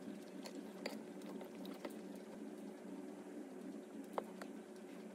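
Faint, scattered clicks of a metal spoon tapping against a ceramic bowl while eating, a handful of light taps over a faint steady hiss.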